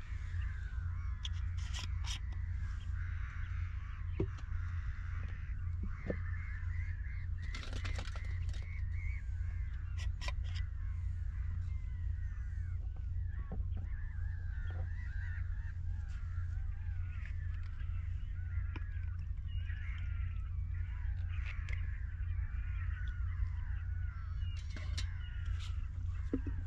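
A flock of birds calling continuously, many short chirps overlapping, over a steady low rumble, with a few sharp clicks.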